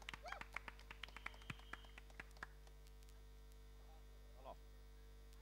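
Scattered hand claps from an audience's applause thinning out and dying away within the first two and a half seconds, over a steady mains hum from the hall's sound system.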